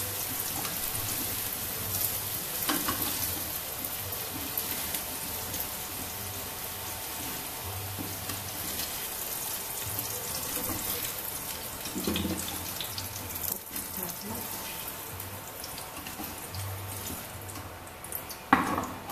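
Hot oil sizzling steadily in a stainless steel pot as fried potato and carrot cubes are lifted out with a wooden spatula, with a few light knocks of the spatula against the pot, the loudest near the end.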